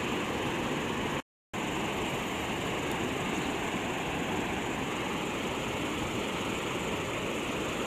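Steady rushing of river water pouring over a low-head dam spillway, an even roar that cuts out completely for a moment about a second in.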